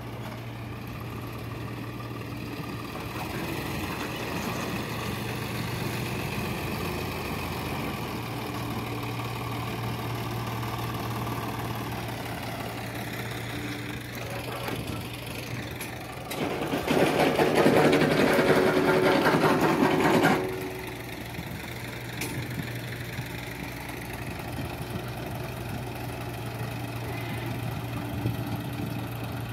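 Swaraj tractor's diesel engine running steadily at low revs while it tows a loaded trolley, growing louder and harsher for about four seconds past the middle before settling back.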